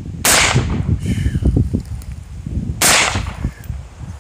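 Two rifle shots about two and a half seconds apart, each a sharp crack with a short tail.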